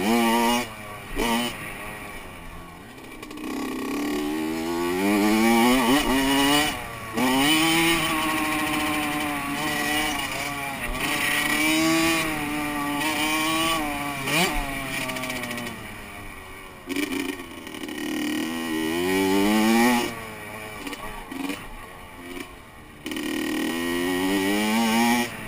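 Honda CR85 two-stroke motocross bike engine revving hard through the gears: its pitch climbs in repeated rising sweeps and drops off each time the throttle is shut or a gear is changed, with wind noise underneath.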